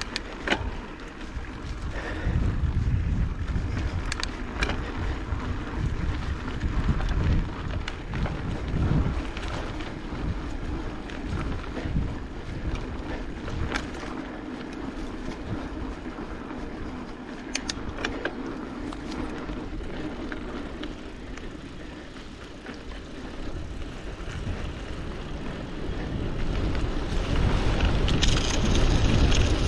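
Mountain bike ridden along a dirt bush trail: a low, gusting rumble of wind on the microphone over tyre and ride noise, with a few sharp rattles or clicks from the bike. A louder hiss comes in near the end.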